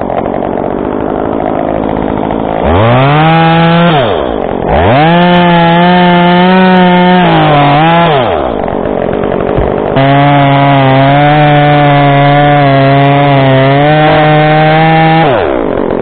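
Gas chainsaw cutting through a cherry tree limb. It revs up to full throttle three times: briefly, then for about three seconds, then for about five. Between the cuts it drops back to idle.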